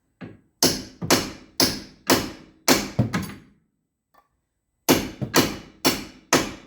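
Hammer blows on a 15 mm socket set on a hub bolt, struck to shock a seized front wheel hub free on a Jaguar XF. About six sharp blows come roughly two a second, then a pause of over a second, then another run of about five.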